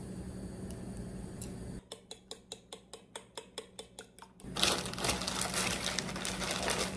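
A fork beating eggs in a ceramic bowl, clicking against the bowl about five times a second. Then a paper bakery bag holding a baguette crinkles and rustles as it is handled, louder than the clicking.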